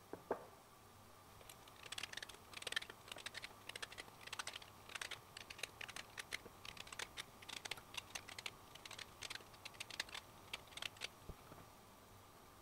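Vegetable peeler stripping the peel off a lemon: a quick, irregular run of short scraping strokes, one after another. A single knock comes just after the start.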